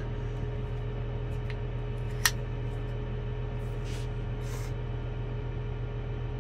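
Fendt tractor engine idling, a steady low hum heard inside the cab, with one sharp click a little over two seconds in as a USB stick is pushed into the terminal's port.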